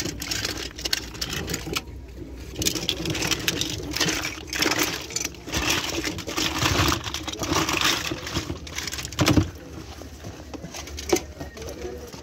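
Hands rummaging through a cardboard box full of small plastic toys and toy cars, the pieces clattering and rattling against each other in irregular bursts.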